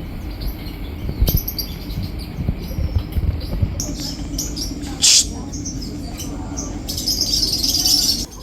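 Many small birds chirping and tweeting together in an aviary. One louder call stands out about five seconds in, and a dense run of high chirping comes near the end.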